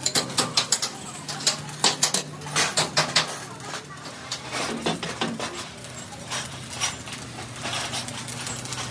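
Metal parts and tools clinking and knocking together in quick succession for the first few seconds, then more scattered clinks.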